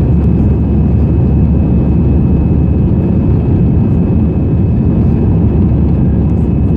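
Cabin noise of an Airbus A320-214 in the climb after takeoff: a steady, loud rumble from its CFM56-5B engines at climb thrust and the airflow past the fuselage, with a thin steady high whine above it.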